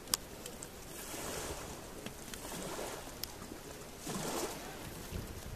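Small waves lapping and washing on a pebble beach, with a swell of wash about a second in and a stronger one about four seconds in, and a few sharp clicks.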